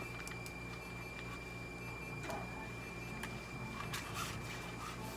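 Steady low electrical hum of clinic equipment, with a thin high whine that stops about two seconds in, a few faint clicks, and a soft rustle near the end.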